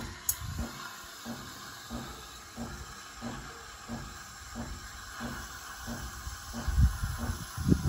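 Saeco SE50 espresso machine's steam wand hissing steadily as it steams whole milk in a stainless steel pitcher, with a soft regular pulse about one and a half times a second. Two louder low thumps come near the end.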